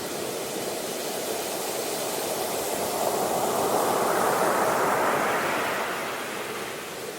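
Sea waves washing on a shore: a steady rush of surf that swells to a peak about four seconds in and then draws back.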